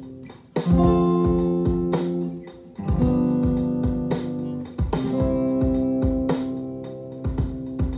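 Electric guitar played clean, striking one chord at a time and letting each ring: a chord about half a second in, a G7 about three seconds in, then a C major around five seconds in, resolving the dominant back home, with a few short strums near the end.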